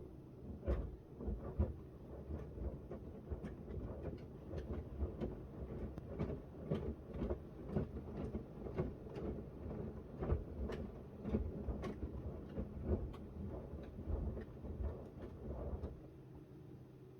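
Miele W1 front-loading washing machine's drum turning, with the small load of shirts tumbling and thudding in the water in an irregular run of soft knocks. It stops about a second before the end, leaving a quiet hum.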